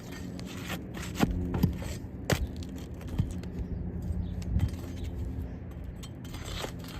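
Intermittent scraping and a few sharp clicks of roofing shingles being pried and worked loose, over a steady low hum.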